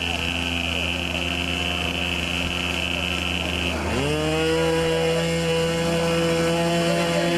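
Model aircraft engine running at a steady speed, then revved up sharply just before the halfway point and held at the higher speed.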